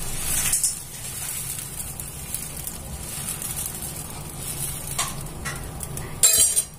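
Dosa batter sizzling on a hot tava as a steel ladle spreads it in circles, with a short loud clatter near the end.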